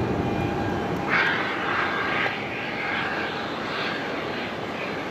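Jet engines of an Airbus A330-223 (Pratt & Whitney PW4000 turbofans) running at takeoff power as a steady rumble, with a brighter hiss rising from about a second in and easing off near the end.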